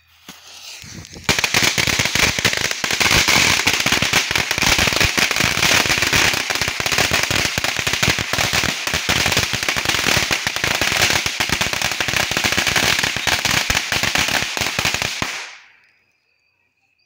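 A strip of about 500 firecrackers going off in a loud, dense, unbroken crackle of rapid pops for about fourteen seconds, dying away near the end. Before it, a second of rising hiss as the fuse is lit with a torch lighter.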